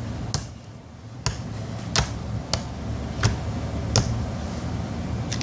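Soft creamy slime being pressed and stretched by hand, giving sharp clicks and pops at irregular intervals, about seven in all.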